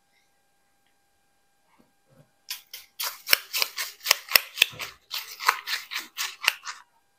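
A quick run of sharp clicking, scraping strokes from a kitchen utensil, about four or five a second. It starts about two and a half seconds in and stops near the end.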